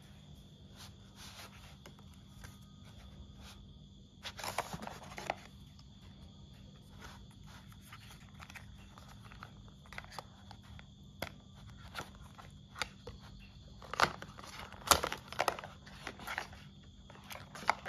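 Hands handling Apple Watch packaging: paper and card rustling, scraping and tapping as the magnetic charging cable is taken out of its paper wrap. A louder rustle comes about four seconds in, and a few sharper clicks near the end.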